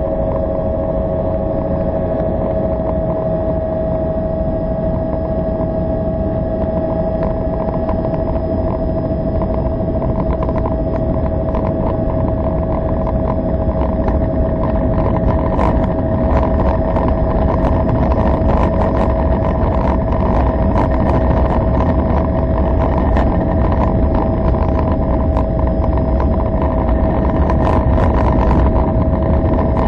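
Bell 206 helicopter in flight, climbing away after takeoff: its turboshaft turbine gives a steady whine over the dense low rotor rumble. From about halfway through, wind crackles on the microphone and the whole sound grows a little louder.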